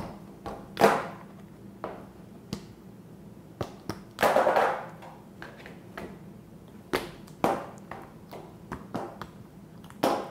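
Irregular light taps and clicks as frozen chocolate pieces are popped out of a flexible silicone ice cube tray and set down on a plastic cutting board, with a longer, louder rubbing of the silicone about four seconds in.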